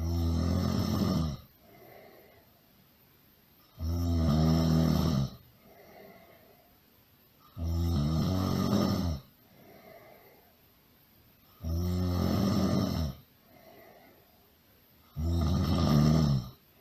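A person snoring really loud: five long snores, one about every four seconds, with a faint breath out between them.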